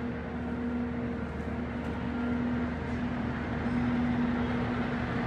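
Martin D-80 heavy-duty lathe running without a cut, its spindle and large chuck turning: a steady mechanical hum with a held tone.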